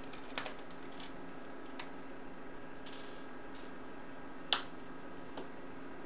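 Small screwdriver unscrewing the bottom-cover screws of a Dell M6600 laptop: scattered light clicks and taps of metal on the screws and plastic case, with one sharper click about four and a half seconds in, over a faint steady hum.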